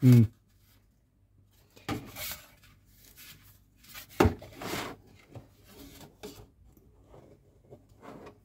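Handling noise from painted model car body panels: parts rubbing and knocking against each other and the box. There are sharp louder knocks at the start, about two seconds in, and about four seconds in.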